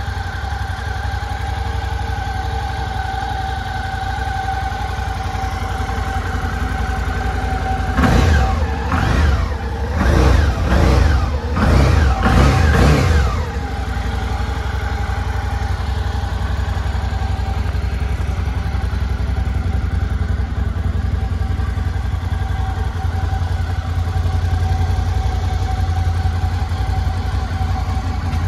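Suzuki V-Strom 650's 645 cc V-twin engine idling steadily, then revved several times in quick succession for about five seconds, starting some eight seconds in, before it settles back to idle.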